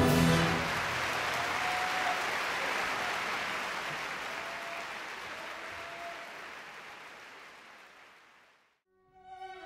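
An orchestra's final chord cuts off about half a second in, followed by an audience applauding, the applause fading away steadily to a moment of silence. String music begins just before the end.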